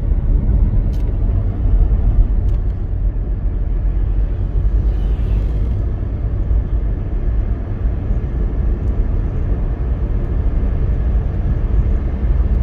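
Steady low rumble of a car driving on a highway, tyre and road noise heard from inside the cabin.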